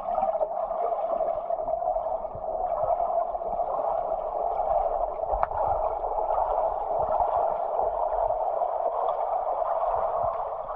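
Muffled, steady underwater water noise from a pool as a swimmer in a fabric mermaid tail with a monofin undulates through the water, heard from below the surface. One faint click comes about halfway through.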